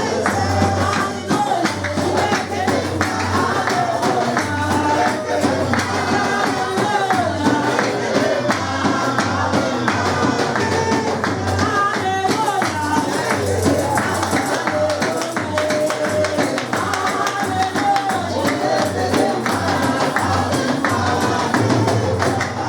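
Lively praise and worship music: voices singing over a steady bass beat, with shaken percussion running throughout.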